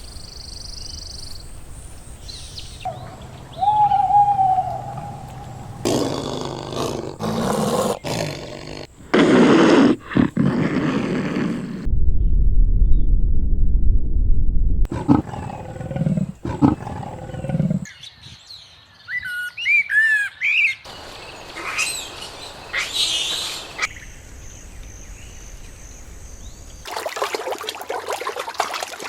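Short recordings of different animal calls played one after another, changing every few seconds, with a run of bird chirps about twenty seconds in.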